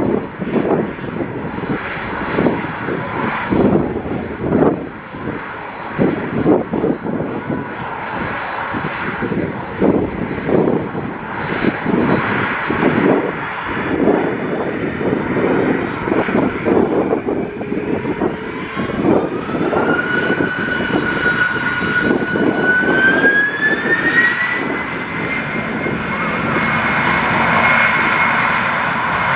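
Jet airliner engines, loud, with a wavering rush of noise; past the middle a whine rises in pitch in steps and holds high near the end.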